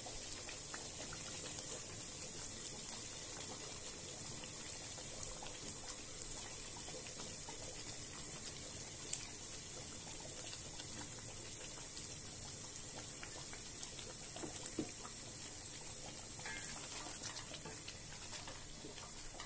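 Steady hiss of watery curry simmering in a wok on a gas burner, with a few faint splashes and knocks as chicken pieces are dropped in.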